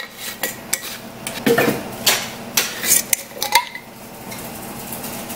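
Scattered clinks and taps of a glass spice jar and utensils against a stainless steel saucepan as dry spices are added to broth, quieter in the last couple of seconds.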